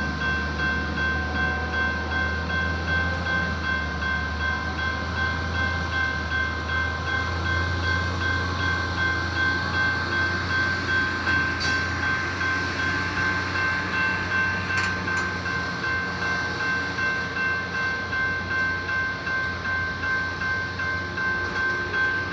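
A railroad grade-crossing bell rings steadily, its high tone pulsing evenly, over the low steady running of a trackmobile's diesel engine.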